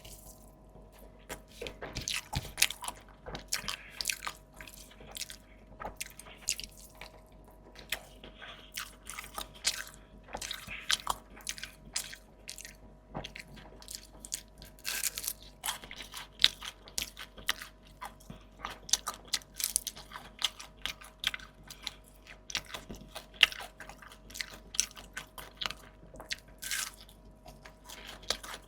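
Close-miked eating: a person biting into and chewing crunchy food, with many irregular crisp crunches.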